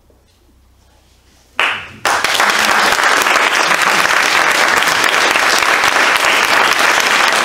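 Audience applause starting suddenly about a second and a half in after a faint lull, then continuing as dense, steady clapping.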